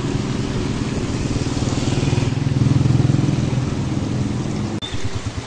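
Motorcycle engine running steadily while riding along a flooded street, with a brief hiss of water under the tyres about two seconds in.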